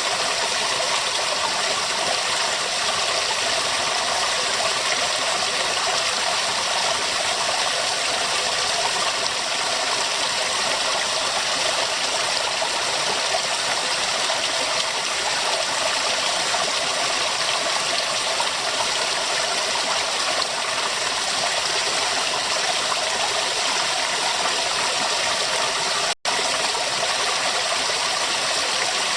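River water running steadily, an even rushing noise, with a momentary cut-out to silence near the end.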